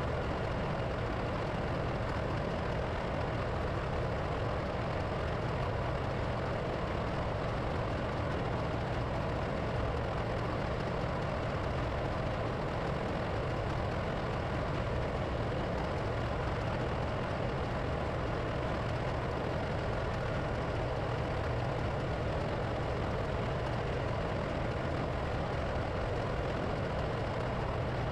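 Steady drone of running diesel machinery, typical of an engine room where other engines keep running while one generator engine is stopped for overhaul. It holds unchanged throughout, with no distinct knocks or tool sounds standing out.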